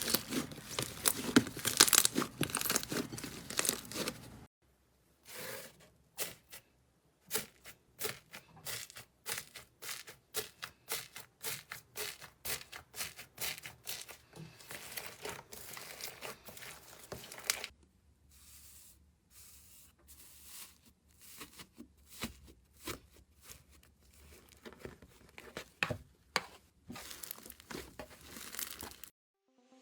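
Slime being squeezed and poked by hand, giving off dense crackling and popping. After about four and a half seconds it turns to sparser clicks and pops, and it thins out again at about eighteen seconds.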